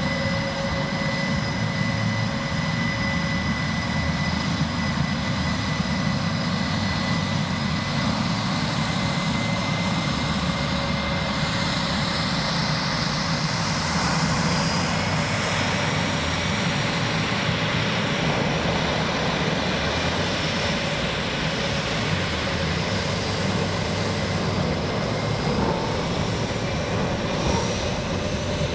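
F/A-18F Super Hornet's twin General Electric F414 turbofan engines running at taxi power: a steady jet whine with thin high tones over a constant rush.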